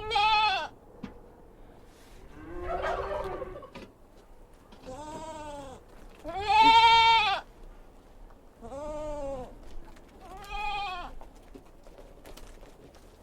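Livestock bleating: about six separate calls, each rising and then falling in pitch. One call about three seconds in is lower and rougher, and the loudest comes about halfway through.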